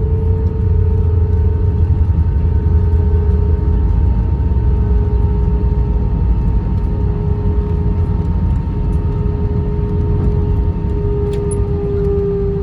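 Airbus A320 cabin noise: a steady low rumble with a steady engine whine over it.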